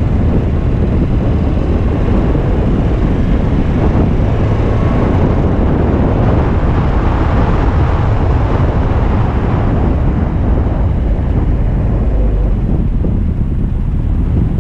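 Alfa Romeo Spider driving, heard as a steady rumble of wind buffeting the camera's microphone over the car's running and road noise.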